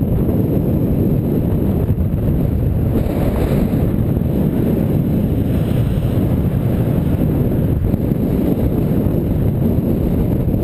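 Wind buffeting a bicycle-mounted camera's microphone while riding: a loud, steady low rumble.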